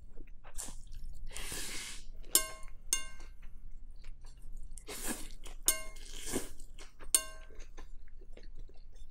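Rice noodles of pho being slurped from the bowl three times, with chewing in between. Metal chopsticks clink against the glass bowl four times, each clink ringing briefly; the first, about two seconds in, is the loudest sound.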